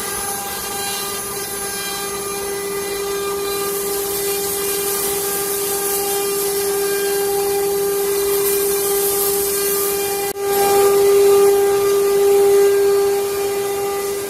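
CNC wood carving router running, its spindle giving a steady high whine over a hiss of cutting. The sound drops out for an instant about ten seconds in, then comes back a little louder.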